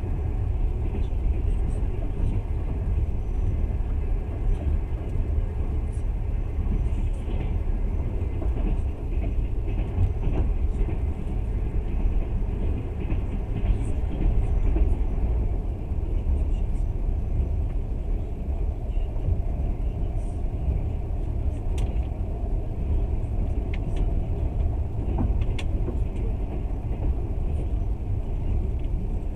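Passenger train's steady running rumble, wheels on rails, heard from inside the carriage, with a few faint ticks.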